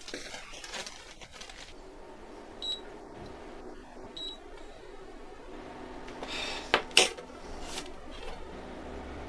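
Two short high electronic beeps about a second and a half apart, like a kitchen appliance's control panel being pressed. Then, about seven seconds in, a metal pot clatters with two sharp knocks, and a low steady hum follows.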